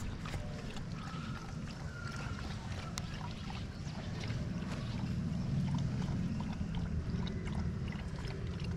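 A bull drinking from a plastic bucket, with faint wet slurping clicks over a low steady rumble of wind on the microphone. The rumble grows a little louder about halfway through.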